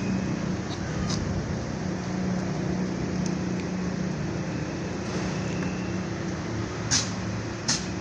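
A steady low mechanical hum with noise behind it, like an engine or machine running, and two sharp clicks about a second apart near the end.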